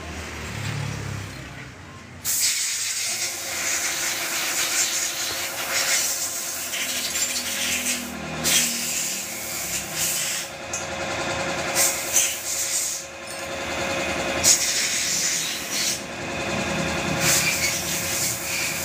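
A machine starts running suddenly about two seconds in: a steady loud hiss over a constant hum, with small dips now and then.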